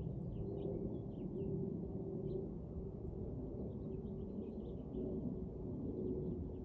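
Jet airliner passing high overhead: a steady distant low rumble with a faint steady hum. Small birds chirp briefly throughout.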